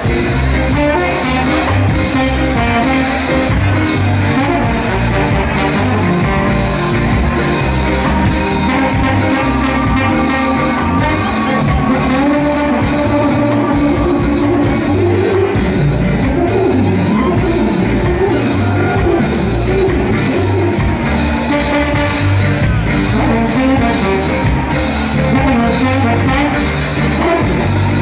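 Live ska band playing with a full horn section of saxophone, trumpet and trombone carrying the melody over electric guitar, keyboard and drum kit, with a steady, even beat.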